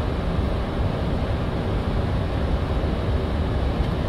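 Steady low rush of cockpit noise on a Boeing 737-800 flight deck: airflow and engine sound, even throughout with no distinct events.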